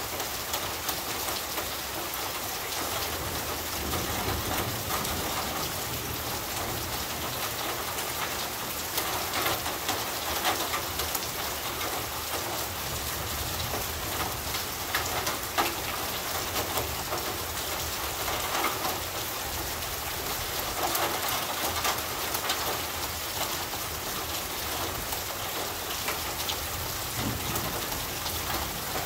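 Heavy rain drumming on corrugated tin roofs: a dense, steady hiss packed with countless small drop strikes on the metal, swelling slightly now and then.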